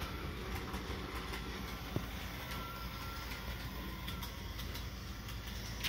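Bachmann Thoroughbred HO scale model train running on its track: a steady motor hum and wheel rumble with faint light clicks, and one sharper click about two seconds in.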